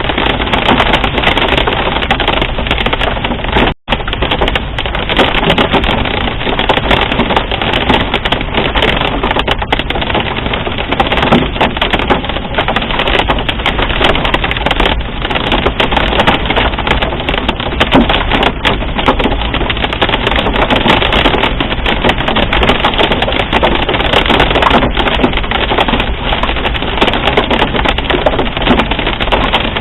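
Dense hail hammering on a vehicle's roof and windshield, heard from inside the car: a loud, continuous clatter of sharp impacts from pea- to marble-size hailstones. The sound cuts out for a moment about four seconds in.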